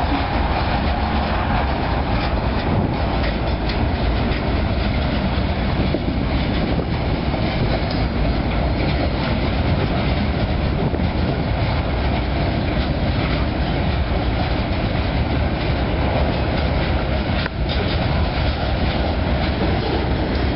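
Coal hopper cars of a CSX freight train rolling past: the steady rumble and clatter of steel wheels on the rails.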